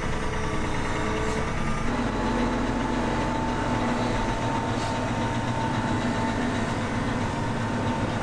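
A John Deere tractor's diesel engine running steadily; about two seconds in its note changes and a steady higher tone comes in.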